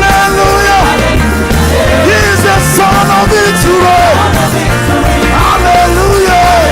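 Live worship band playing an upbeat praise song: a steady bass line under drums, with a melody line that slides and bends in pitch over the top.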